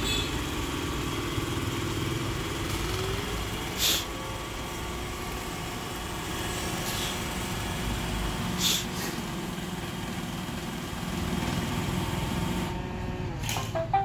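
iRobot Roomba i7 robot vacuum running, its vacuum fan and drive motors humming steadily as it drives across the tile floor to its dock, with a sharp click about 4 seconds in and another about 9 seconds in. Near the end the fan noise stops as it docks, and a few short electronic tones begin.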